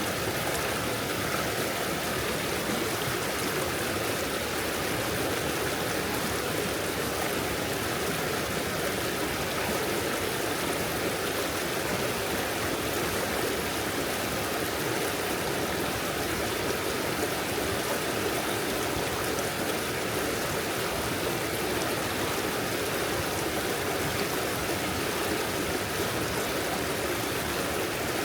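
Shallow forest stream flowing and babbling over stones in a steady rush of water.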